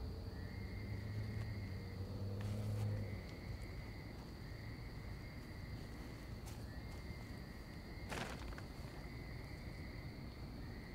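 Night insects, crickets among them: a steady high-pitched drone with long trains of chirping that stop and start again every second or so. A low hum is heard for the first three seconds, and a single sharp click comes about eight seconds in.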